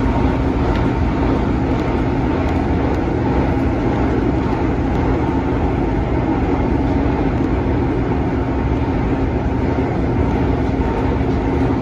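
Inside an MTR Tung Chung line A-train running at speed: the steady rumble of wheels on rail with a constant hum from the running gear.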